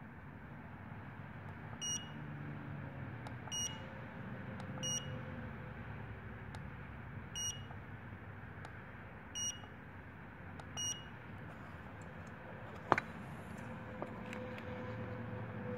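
Idili OCS-S1 digital crane scale beeping at each button press: six short, high beeps, spaced a second or two apart. Near the end comes a single sharp click, the loudest sound.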